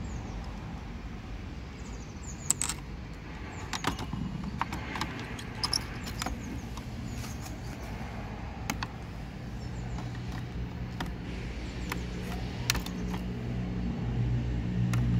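Scattered small clicks and taps of hands handling the plastic mirror housing, indicator lamp and its wiring, over a low steady hum that grows louder near the end.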